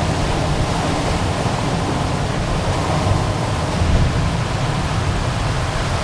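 Ocean surf breaking onto rocks in a cove: a steady rush of white water with a deep rumble underneath and no single wave crash standing out.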